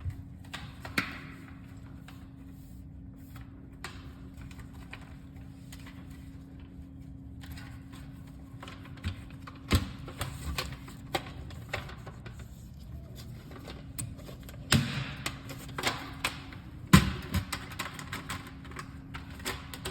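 Irregular clicks and knocks of hard parts being handled, over a steady low hum.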